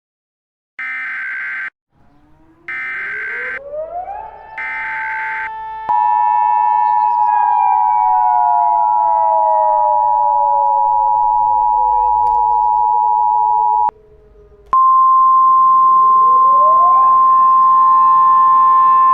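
Emergency Alert System tones: three short buzzy bursts of the data header, then the steady two-tone attention signal, and after a brief break a single steady higher tone. Behind them a civil defense siren winds up, slowly falls away, then winds up again.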